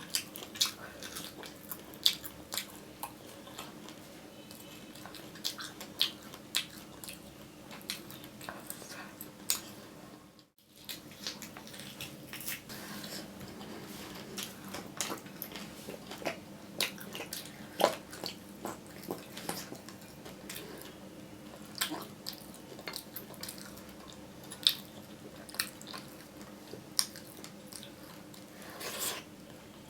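Close-up chewing and wet mouth sounds of a person eating, irregular smacks and clicks, over a steady low hum. The sound drops out for a moment about ten seconds in.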